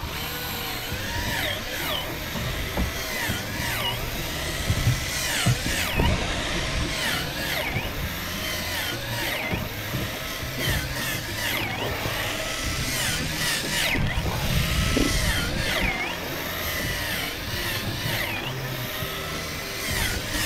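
Electric fishing reel's motor whirring as it jigs, its pitch repeatedly dipping and rising again about once every second or two.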